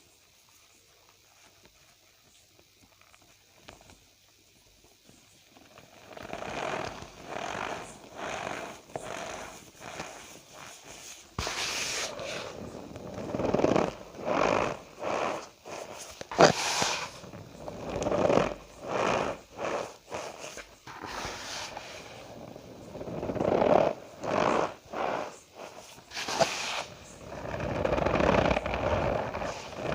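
Cornstarch powder being squeezed and pressed by hand, giving repeated squeaky crunches about once a second. The first few seconds are near silence before the squeezing starts.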